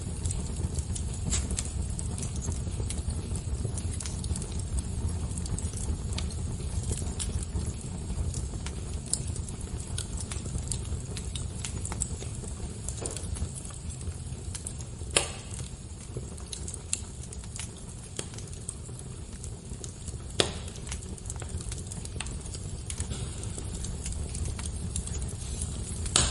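Fire crackling, with a steady low rumble under many small scattered pops and two louder, sharper pops past the middle.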